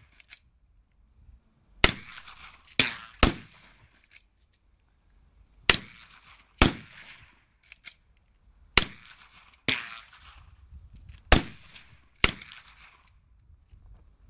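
Rifle shots from a .223 Vektor H5 pump-action rifle: about nine sharp reports, mostly in pairs roughly a second apart, each with a short echo tail, and a few faint clicks between them.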